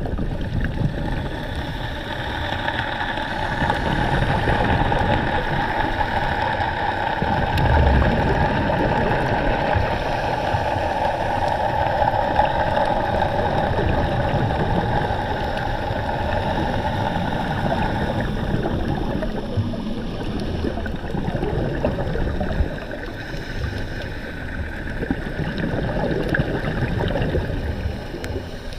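A boat's engine running steadily over water noise, its hum easing off after about two-thirds of the way through.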